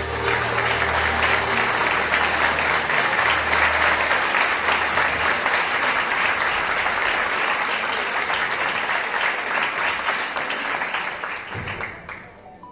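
Audience clapping at the end of a song, a dense steady applause that dies away near the end.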